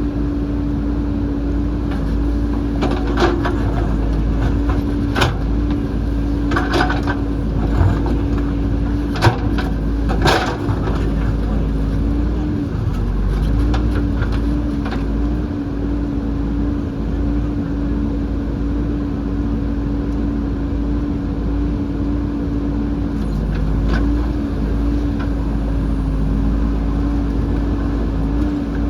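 JCB backhoe loader's diesel engine running steadily, its pitch dipping briefly a few times, with a handful of sharp knocks and clatters in the first ten seconds or so.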